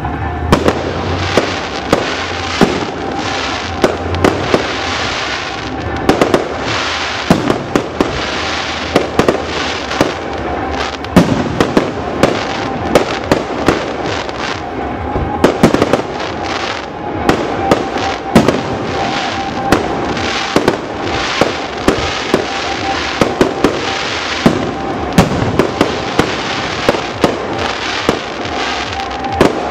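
Fireworks display: rapid, irregular bangs of bursting aerial shells, several a second, over a continuous crackle and rumble. A steady tone holds underneath.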